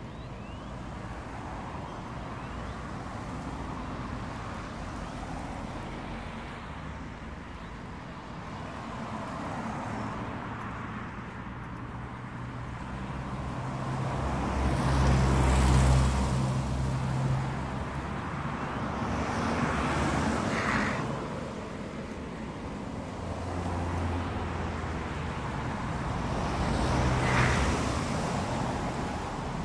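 Road traffic: cars passing one after another over a steady background of traffic noise. The loudest pass comes about halfway through, with further passes about two-thirds of the way in and near the end.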